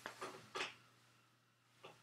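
Computer keyboard keys being typed: a quick run of four or five clicks in the first half-second, and one more keystroke near the end, over a faint steady electrical hum.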